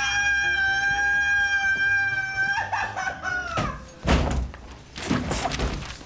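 A man's long, shrill scream held on one high pitch, dipping and breaking off after about three and a half seconds. It is followed by several hard thumps and knocks.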